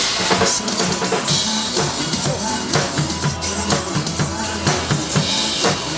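Drum kit played live over a recorded song, a steady beat of bass drum and snare strokes during a stretch without vocals.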